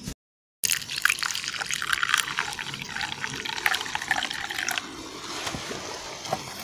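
Water poured from an aluminium camping pot into a wooden kuksa cup, a trickling splash that stops about three-quarters of the way through.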